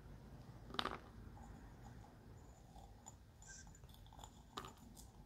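Quiet handling of a small glass jar of cannabis buds: one sharp tap about a second in, then a few light taps and clicks near the end.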